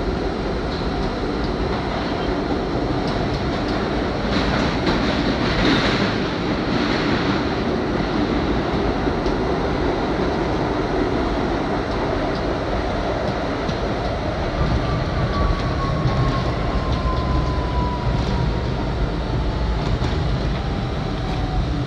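R32 New York City subway train running through a tunnel, heard from inside the car, with a steady rumble of wheels on track. From about two-thirds of the way in, a thin whine falls slowly in pitch as the train slows into a station.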